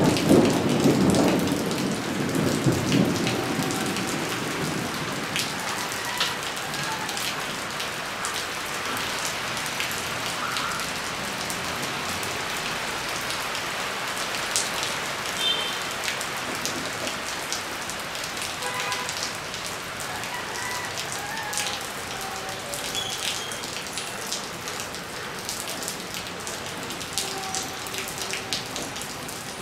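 Steady rain falling on a wet concrete rooftop with standing puddles, with single drops striking close by. A low rumble fades away over the first few seconds.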